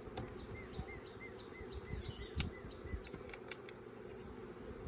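Honeybee colony buzzing steadily around an opened hive, kind of loud, with a few light knocks.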